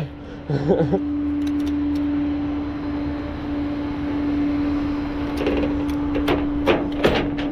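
Truck engine idling: a steady low rumble with a constant humming tone over it.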